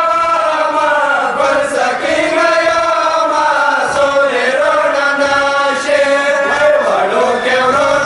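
Men's voices chanting a noha, a Shia mourning lament, in long held melodic notes that bend slowly up and down.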